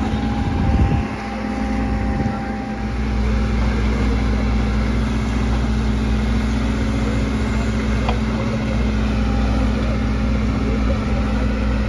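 Bull backhoe loader's diesel engine running steadily, a constant low hum, while the backhoe arm digs wet mud. There is a brief louder moment about a second in.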